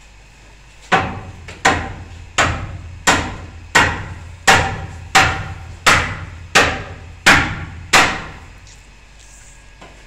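Hammer blows: eleven evenly spaced strikes, about one every 0.7 seconds, each ringing briefly, stopping about eight seconds in.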